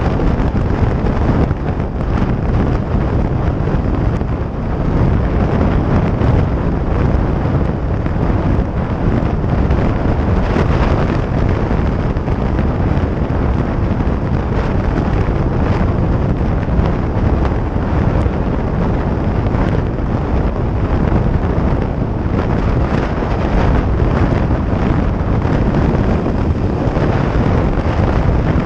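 Steady wind buffeting the microphone over the engine and road noise of a 2017 Harley-Davidson Sportster 883 Iron, an air-cooled V-twin, cruising at highway speed.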